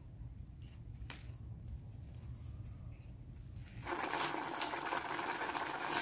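A low rumble with a faint click or two, then from about four seconds in a steel pot of soup bubbling and hissing on the stove while fresh smilax shoots are stirred in with a wooden spoon, with wet scraping and squelching.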